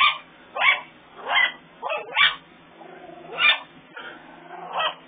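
A small dog barking: about seven short barks at uneven intervals, several close together in the first half and the last one near the end.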